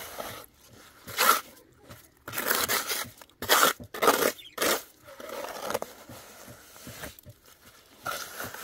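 Steel trowel scraping and smoothing wet cement mortar on a concrete block bench, in a series of short, irregular strokes.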